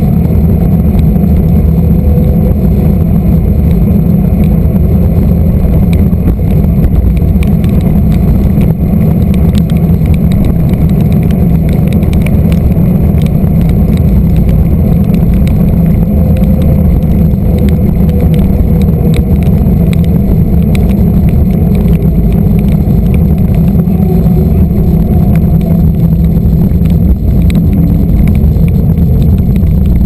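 Steady wind buffeting on the microphone of a camera mounted beside a mountain bike's front wheel, over the hum of its knobby tyre rolling on asphalt.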